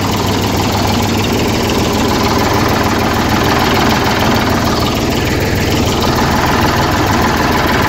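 Eicher 485 tractor's diesel engine running steadily at idle, with no change in speed.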